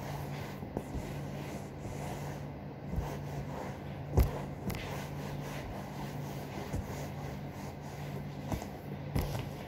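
Cloth wiping and rubbing across a sofa's leather-like seat, with scattered soft knocks, the loudest about four seconds in, over a steady low hum.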